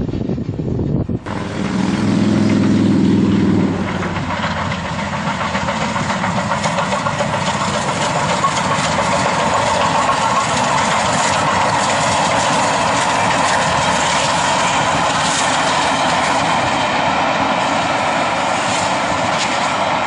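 Steam-hauled passenger train, led by Bulleid Battle of Britain class Pacific 34067 Tangmere, running past at speed with a steady rush of wheel and coach noise. A low steady note sounds for about two and a half seconds early in the passing.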